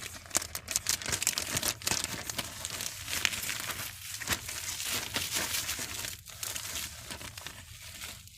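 Packaging of a mail-order clothing item being torn open and crinkled by hand: a dense run of irregular crackles and rustles.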